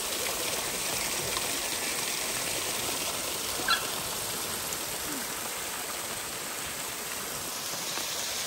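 Muddy river water spilling over the edge of a low concrete weir and splashing onto rocks below, a steady rush of water. One short, high chirp comes about halfway through.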